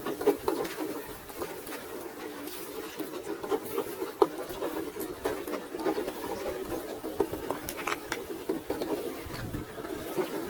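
Small electric motor and gearbox of an HB ZP1008 4x4 RC off-road truck running steadily, with many sharp clicks and ticks of its tyres and chassis on rock.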